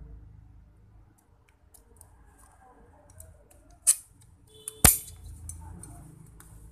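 Hand metal snips cutting thin tin sheet: a few soft snips, a sharp snap about four seconds in, then a loud clack about a second later, the loudest sound.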